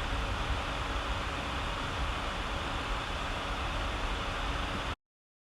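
Steady background noise: an even hiss with a low rumble and a faint steady hum, cutting off abruptly about five seconds in.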